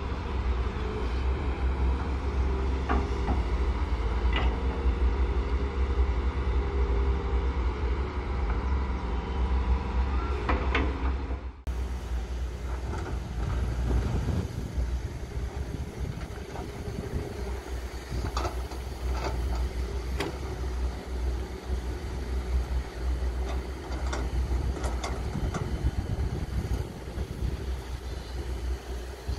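Diesel engines of Volvo crawler excavators running steadily under load while digging, with scattered clicks and knocks. About a third of the way through, the sound changes abruptly and turns a little quieter.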